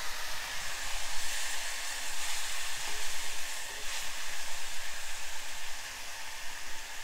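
Tender tamarind leaves, peanuts and chillies sizzling in hot oil in a steel kadai, with a spoon or two of water just added and steaming off, while a wooden spatula stirs and scrapes them around the pan.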